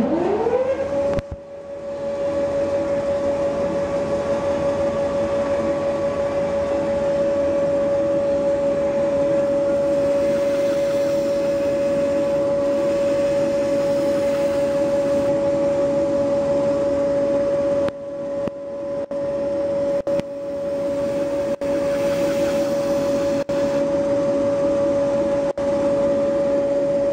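Electric motor of a knife-sharpening and polishing wheel spinning up with a rising whine. It settles within about a second into a steady whine as the wheel runs at speed.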